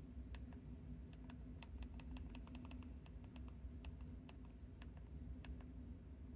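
Faint, irregular clicks of the keypad buttons on an Audiovox CDM9900 cell phone being pressed, over a low steady hum.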